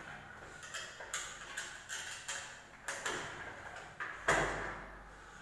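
Irregular light clicks and taps of hands working at an aluminum door frame and its top hinge, with one louder knock about four seconds in.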